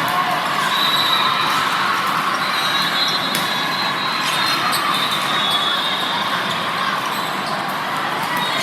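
Steady crowd chatter echoing in a gymnasium during an indoor team ball game, with scattered sharp ball hits and a few brief high squeaks.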